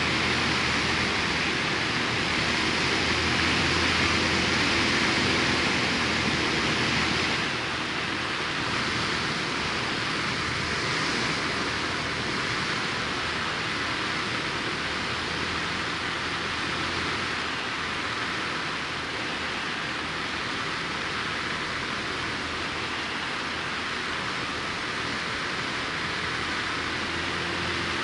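Light aircraft's engine and propeller with heavy wind rush, heard from inside the cockpit on approach to landing. About seven and a half seconds in, the engine note falls away and the sound gets a little quieter, leaving mostly wind noise.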